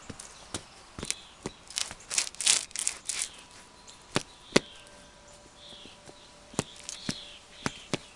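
Dress shoes scuffing and tapping on a concrete floor: a run of rough scrapes about two to three seconds in, then scattered sharp single clicks.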